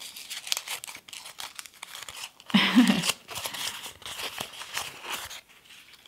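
Crumpled paper sticky note being unfolded and smoothed flat by hand, crackling throughout. A brief voice sound comes about halfway through.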